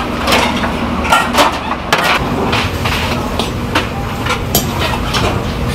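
Busy restaurant kitchen noise: a steady low rumble under scattered short clinks and clatters of stainless steel bowls and utensils.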